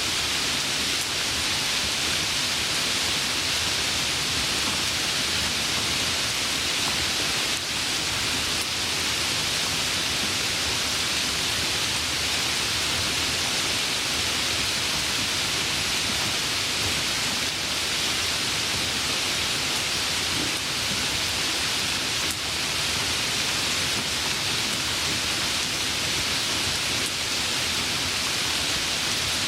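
Steady, even rain falling, a dense hiss with no single drops standing out.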